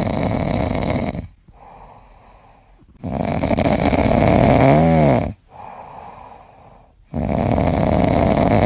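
A cat snoring in its sleep: three long, rough snores a few seconds apart, with quieter breaths between them. The middle snore carries a brief squeaky tone that rises and falls.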